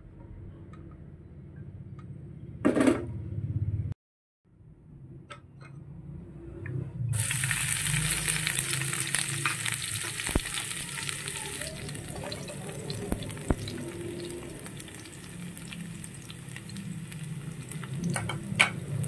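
Food frying in hot oil in a pan: a steady sizzle that starts suddenly about seven seconds in and eases a little a few seconds later, with small clicks of stirring. A short clatter about three seconds in.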